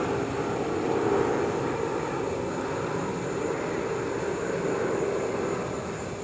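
A steady mechanical drone, slowly getting quieter near the end.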